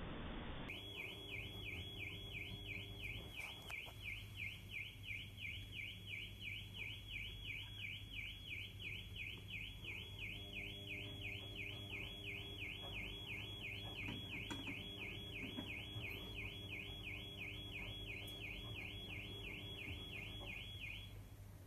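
Vehicle alarm sounding, a high electronic tone warbling up and down about three times a second without a break; it stops just before the end.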